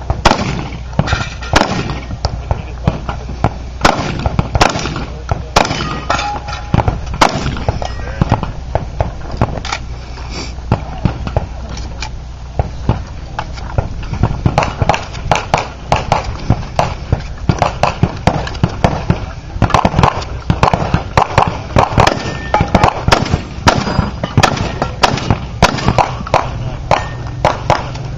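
Gunfire from a 3-gun match stage: many sharp, loud shots, spaced irregularly in the first half and coming in quicker strings of two or three a second from about halfway through.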